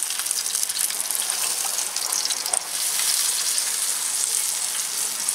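Steady sizzling from a beer and maple syrup glaze being brushed onto a whole chicken turning on a rotisserie spit over hot charcoal.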